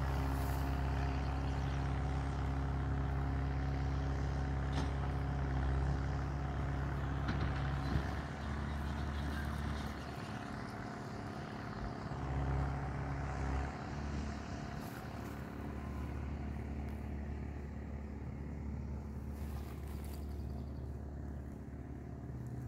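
Ford 5610 tractor's diesel engine running steadily under load while it drives a Claas 46 round baler during baling. There is a single sharp knock about eight seconds in.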